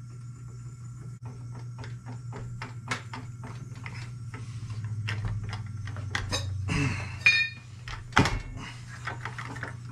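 Small clicks and taps of metal as a clutch is worked by hand onto a two-stroke engine's crankshaft over a lubricated O-ring, with a louder scrape about seven seconds in and a sharp knock about a second later. A steady low hum runs underneath.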